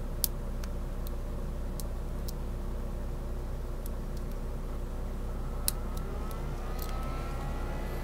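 Sharp metallic clicks and ticks of a lock pick working the pin stack of a Master Lock No. 230 pin-tumbler padlock under light tension: two louder clicks, about a quarter second in and near six seconds, and several fainter ones. A steady low hum runs underneath.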